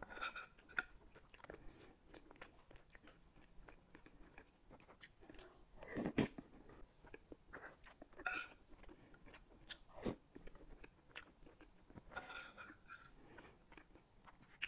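Close-miked chewing and wet mouth sounds of someone eating a soft cream cake topped with chewy tapioca pearls, with many small clicks. A few louder sharp knocks stand out, about six and ten seconds in.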